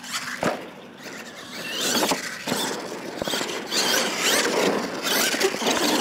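R/C monster truck's motor whining as it revs up and down, with a sharp knock about half a second in as the truck lands from a jump. Its tyres then scrabble on loose dirt as it spins and throws up dust, a noisy rush that builds toward the end.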